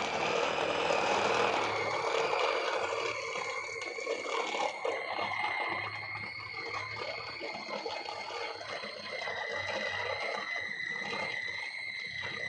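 Electric blender motor running with a steady high-pitched whine, its pitch sagging slightly about two seconds in and again near the middle.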